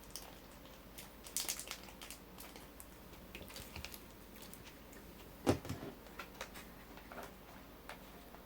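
Scattered light clicks and taps, with a quick run of them about one and a half seconds in and one louder knock about five and a half seconds in.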